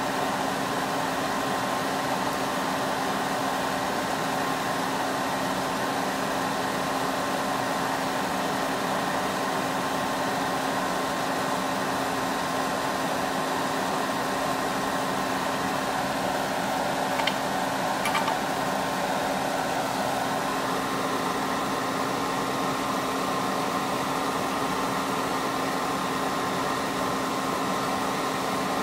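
Steady mechanical hum with a few fixed tones, like a small fan running, and two light clicks a little past halfway, under a second apart.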